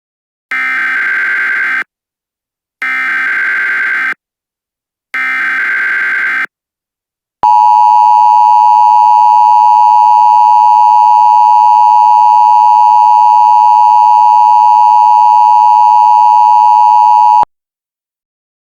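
Emergency Alert System start-of-alert signal, made by an EAS encoder: three bursts of screechy digital SAME header data, each a little over a second long with about a second between them. Then comes the loud, steady two-tone attention signal, held for about ten seconds before it cuts off.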